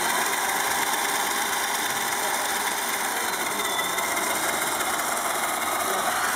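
Metal hybrid planetary gear train running fast, driven by an electric motor on one input and a power drill on the other: a steady mechanical whir of spinning gears and motors.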